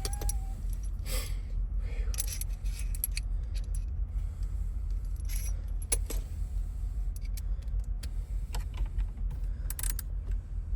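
Scattered light metallic clinks and jingles of small metal tools and keys being handled, over a steady low hum.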